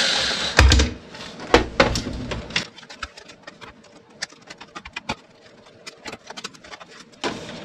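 A cordless drill's whir cuts off just after the start. Then comes a run of irregular clicks, knocks and light rattles as a metal fluorescent light fixture is handled and its ballast-and-starter unit is pulled out. The loudest knocks fall in the first three seconds, and the clicks grow softer after that.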